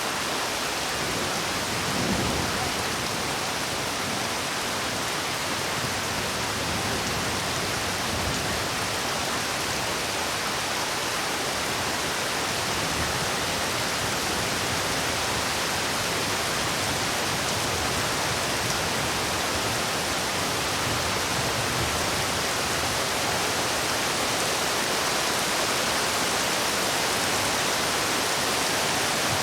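Heavy rain falling steadily as a dense, even hiss. There is a brief low thump about two seconds in.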